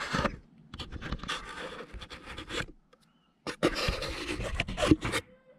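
Close handling noise as a camera is fitted inside a scratch-built wooden G scale model tram: rubbing, scraping and small knocks against the tram body, in two spells with a short pause about halfway through.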